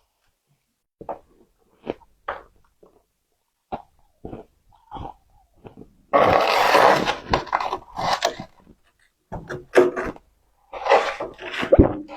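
Powdery deep-freezer frost crunching as it is bitten and chewed, in short irregular bursts, with a longer, louder crunch about six seconds in.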